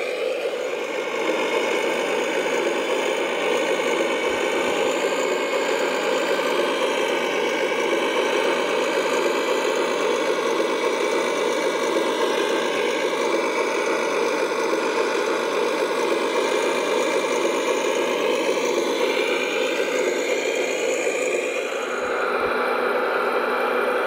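Scale radio-controlled construction machine running steadily, its motors and drive giving a continuous whirr with several whining tones; a higher whine strengthens near the end.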